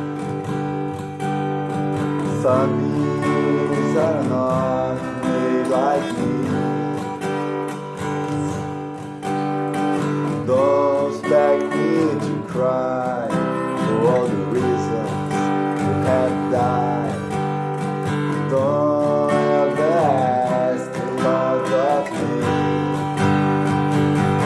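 Acoustic guitar strumming chords in D major, with a melody line gliding above the chords.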